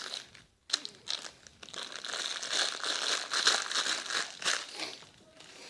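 Clear plastic bag crinkling irregularly as hands work a soft soccer-ball squishy toy inside it.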